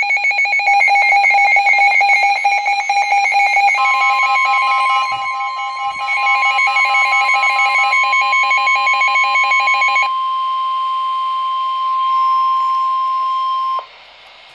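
Emergency Alert System signal: rapid buzzing digital data bursts of the SAME header for about the first ten seconds. About four seconds in, the steady single-pitch 1050 Hz weather-radio alert tone joins them; it holds alone after the bursts stop and cuts off sharply near the end, leaving faint hiss.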